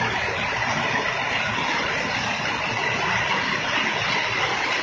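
Heavy rain and hail pelting down in a steady, dense hiss.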